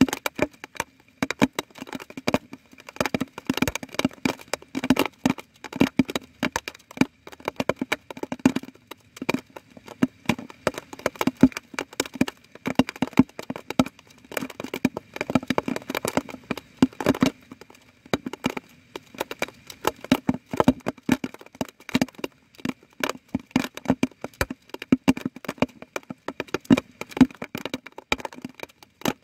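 Water drops tapping irregularly on a hard surface close to the microphone, many sharp little taps a second like rain.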